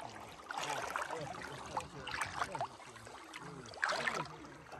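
River water splashing and gurgling against a boat in three short bursts, about a second and a half apart.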